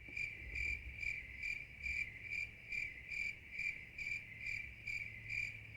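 Cricket chirping sound effect: evenly spaced high chirps, a little over two a second, standing alone. It is the comic 'crickets' cue for an awkward silence.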